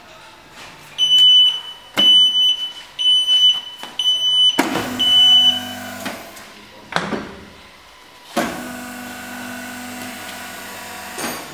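Hydraulic butt fusion welding machine's control unit beeping five times, about once a second. From about halfway its electric hydraulic pump starts with a click and runs in three bursts: a short one, a very brief one, and a longer run of about three seconds near the end.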